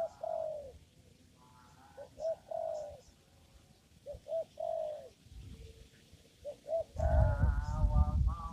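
Spotted dove (tekukur) cooing: phrases of quick short notes ending in a longer, falling coo, repeated about every two seconds. Near the end a loud low rumble of handling or wind noise comes in, with a short voice-like sound over it.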